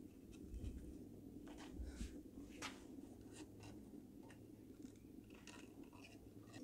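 Faint, scattered clicks and scrapes as a fuel rail is rocked and pulled off its fuel injectors, over a low steady hum.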